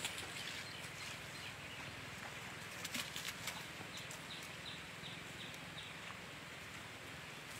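Steady patter of rain, with a few clicks and taps about three seconds in and a bird calling a quick run of short, falling chirps a little after.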